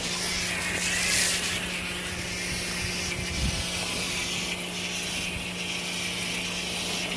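Pressure washer running with a foam cannon spraying onto an RV panel: a steady spray hiss over a constant hum from the washer.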